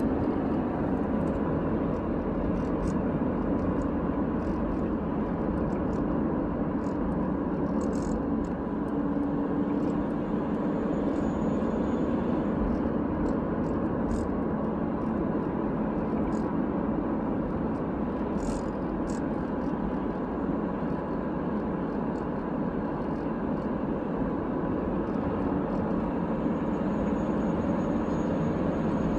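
VW Jetta TDI with the BEW diesel engine and five-speed manual, driving under load with a steady whine over the running noise. The whine is new and comes only under load, louder in the higher gears; the owner wonders whether it is the differential or the turbo.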